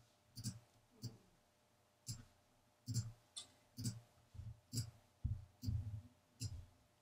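Computer mouse clicking: about a dozen faint, irregularly spaced clicks, some in quick pairs.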